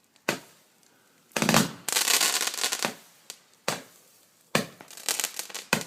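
Multi-shot firework cake firing: sharp bangs roughly every second, several trailed by crackling bursts, the loudest crackle about two seconds in.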